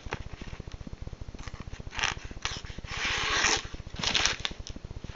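Knife blade making several short scraping cuts, the longest about three seconds in, over a steady low buzz. The blade is starting to rasp a little as it dulls.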